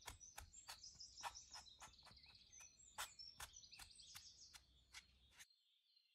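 Faint soft taps of a kitchen sponge dabbing paint onto stretched canvas, a steady run of about two to three a second that stops suddenly near the end. Birds chirp faintly in the background throughout.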